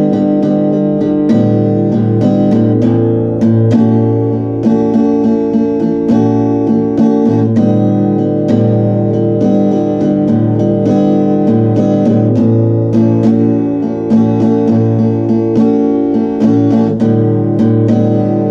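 Background music: a strummed and plucked acoustic guitar track with a steady rhythm.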